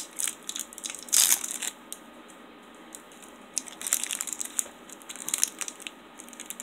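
Clear plastic wrapper of a sticky fruit nougat bar crinkling as it is worked open, in irregular bursts with a lull of a second or so near the middle.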